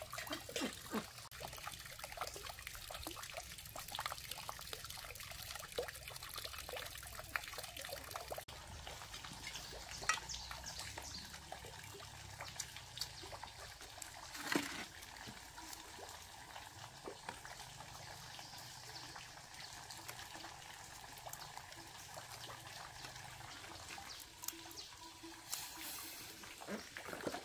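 Water trickling, with scattered light clicks and knocks and one louder knock about halfway through.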